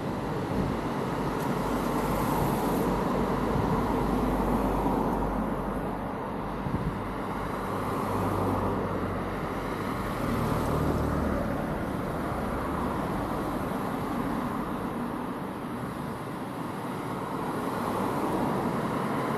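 Steady vehicle and road-traffic noise, a continuous low rumble that swells and fades slightly, with no distinct events.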